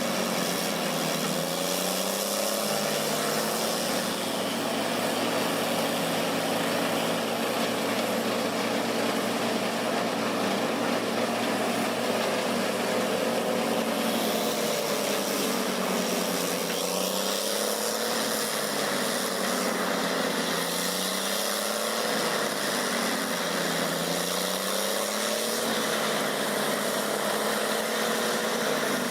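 Engine of a wood chipper running steadily, its pitch sagging and recovering every few seconds.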